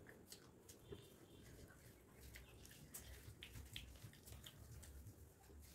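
Near silence with faint, scattered small clicks from eating by hand: fingers picking at fried fish and rice on a steel plate.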